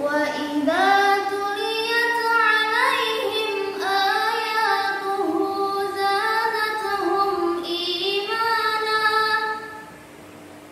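A girl reciting the Qur'an in melodic, ornamented chant: one long phrase with gliding and wavering pitch that stops about ten seconds in.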